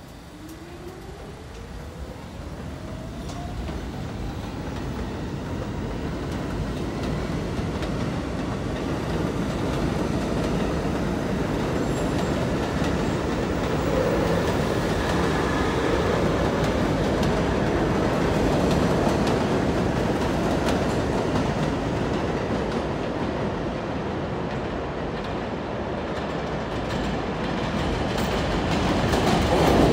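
New York City subway train pulling away on the far track of an elevated station, its motors whining up in pitch over the first few seconds as it speeds up, then the steady noise of the train running on. Near the end a second subway train grows louder as it comes in on the near track.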